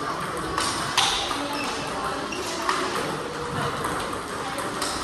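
Table tennis multiball drill: plastic balls clicking off rackets and the table in a quick, irregular series, the sharpest click about a second in.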